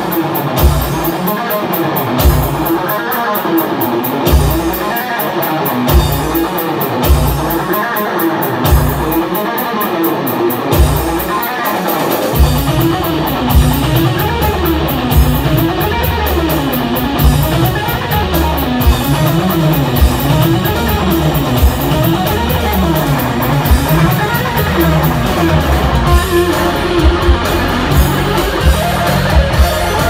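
Live instrumental heavy metal: an electric guitar plays fast lead runs that climb and fall in pitch over bass and drums. The low end pulses in separate hits at first and becomes full and steady about twelve seconds in.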